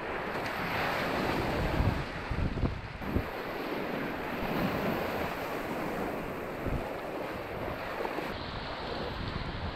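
Whitewater rapid rushing around a kayak in high river flow, a dense steady roar of churning water with water and air buffeting the microphone. A few louder splashes come in the first few seconds.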